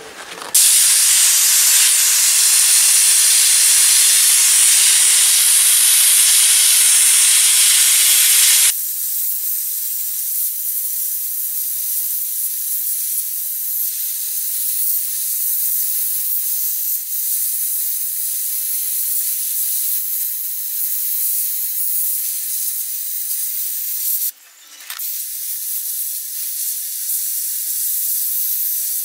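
Compressed-air sandblasting gun blasting abrasive: a loud steady hiss that changes to a thinner, quieter hiss about nine seconds in, cuts out briefly near the end and starts again.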